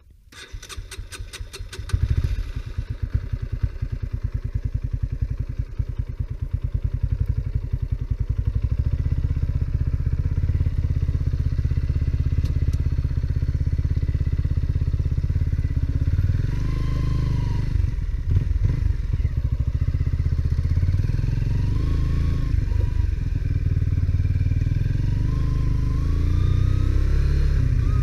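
Honda CBR125R's single-cylinder 125 cc engine with its stock exhaust, running steadily while being ridden. It builds up in level over the first two seconds, and its pitch rises and falls with the revs in the second half.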